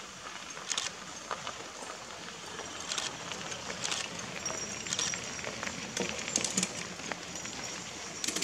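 Loaded mountain bikes rolling past on a gravel road: tyres crunching on the gravel, with scattered sharp clicks as the bikes go by, the loudest cluster about two-thirds of the way through.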